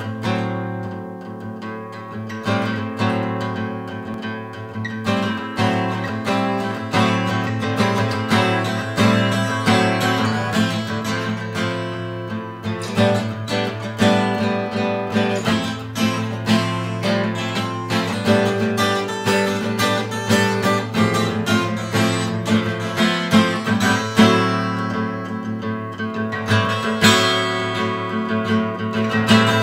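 Acoustic guitar, a Kramer, played as a continuous instrumental piece with many plucked notes over a low bass note that rings throughout.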